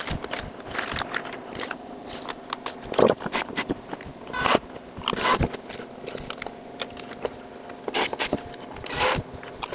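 Handling clicks and taps of small metal hangers, fasteners and tools on a wooden workbench, with short runs of a Makita 18V cordless impact driver fastening sawtooth hangers to a board. A faint steady hum runs underneath.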